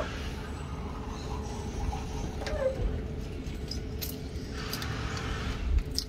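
A bunch of keys jangling in hand for about a second near the end, over a steady low rumble, with a light click about two and a half seconds in.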